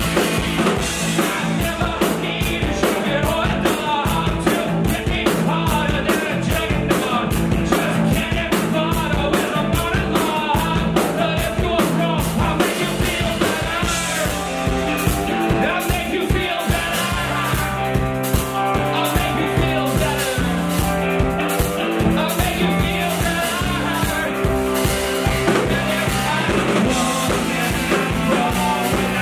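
Live rock band playing loud: electric guitars and a drum kit keeping a steady beat, with a singer's voice at times.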